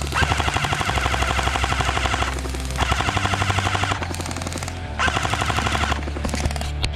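Airsoft rifles firing on full auto: three bursts of rapid clicking shots, the first about two seconds long and the next two about a second each.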